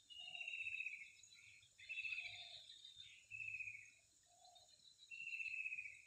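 Four harsh, rapidly pulsed calls of a white-breasted waterhen, each just under a second long, over a steady high drone of insects.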